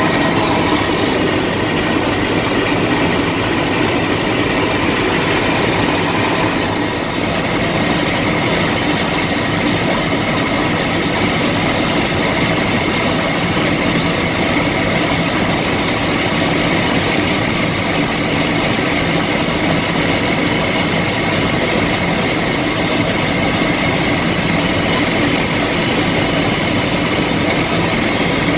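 Steady cabin noise of a Bell 206 helicopter in cruise flight: its turboshaft engine and rotors running as a dense, even rumble with a steady high whine over it.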